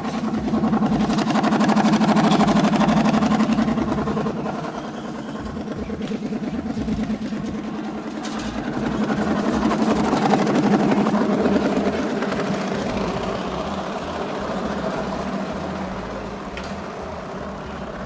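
Bicycle rigged to imitate a Royal Enfield Bullet motorcycle: a rapid, even putt-putt rattle from the wheel as it is ridden. It grows louder twice as the bike comes near, then fades.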